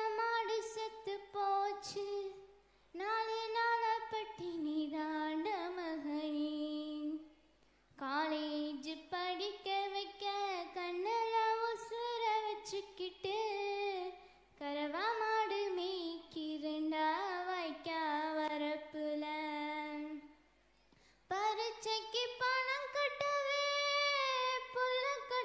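A girl singing a Tamil folk song solo and unaccompanied into a microphone, in long sung phrases broken by three short pauses.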